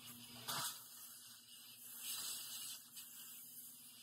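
Trigger spray bottle spritzing cleaner: one short, sharp hissing squirt about half a second in, and a longer, softer spray around two seconds in.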